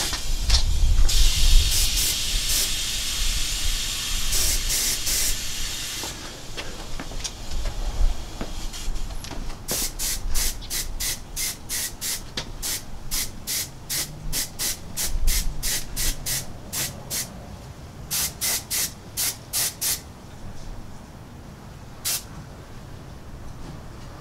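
Airbrush running on compressed air: a steady hiss of spray for several seconds near the start, then a run of short hissing bursts, about two a second, as the trigger is pressed and released. A few low bumps near the start.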